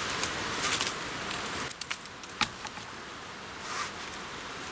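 Bramble stems being pulled through and twisted by hand over dry leaf litter: rustling and scraping, with a few small crackles and clicks over a steady hiss.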